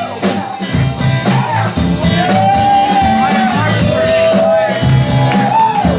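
Live band playing an upbeat country-rock song: a steady drum beat and bass under a long, bending lead melody line.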